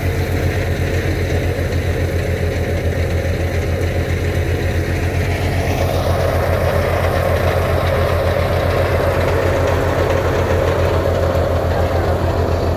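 A tractor's diesel engine runs steadily with an even, fast low throb while it powers a wheat thresher, mixed with the thresher's drum churning through straw.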